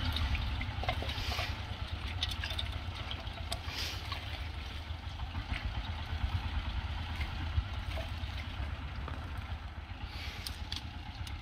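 Steady low engine rumble of a power tiller working a nearby field, with the rustling and crackling of wet water-hyacinth roots being pulled apart by hand and some dripping water.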